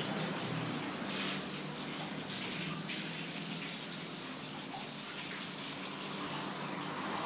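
Water from a hose running steadily over two dogs' wet coats as they are bathed, a continuous splashing hiss.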